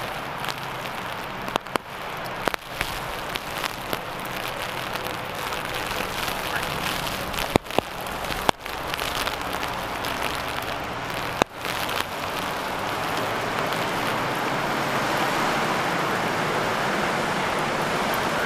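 Steady hiss of rain and flowing floodwater, broken by a few sharp clicks, and growing a little louder over the last few seconds.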